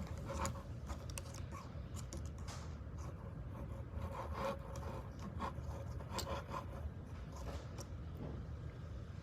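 A bubble toy being handled, with light scrapes, rubbing and small scattered clicks.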